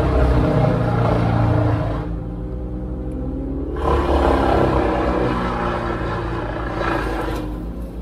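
Diesel engine of a tracked excavator running under hydraulic load as its grapple boom swings and clamps a log, heard from the operator's seat. It runs heavier for the first two seconds and again from about four to seven seconds in, easing off between.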